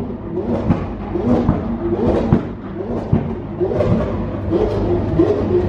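Lamborghini Aventador's V12 idling low and steady as it crawls along, with the chatter of a crowd of onlookers around it.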